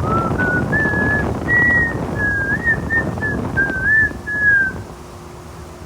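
A clear whistled tune: a string of slow single notes with gliding slides between them, over a low background rumble that falls away about five seconds in.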